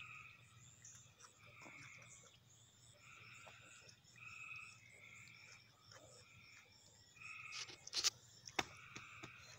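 Frogs calling at dusk: short trilled calls, each about half a second long, following one another about once a second, with a faint high insect-like ticking above them. Two sharp clicks sound near the end.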